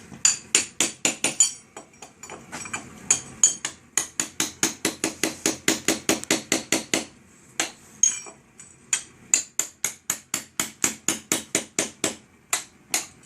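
Rapid light hammer strikes, metal on metal, about five a second with a bright ring on each blow. They come in runs with a few short pauses.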